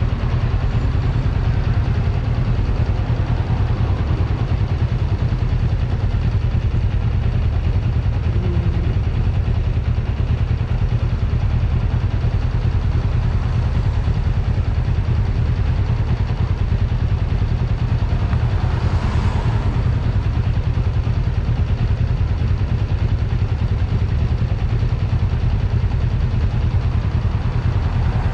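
1994 Kawasaki Vulcan 500's parallel-twin engine idling steadily, a strong, even low rumble. A passing vehicle swells and fades about nineteen seconds in.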